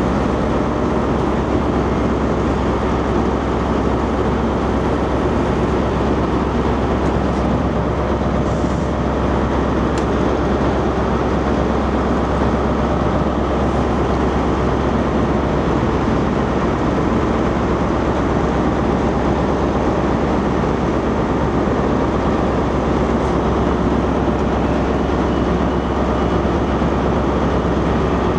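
Electric multiple-unit passenger train pulling slowly past, a steady, even rumble.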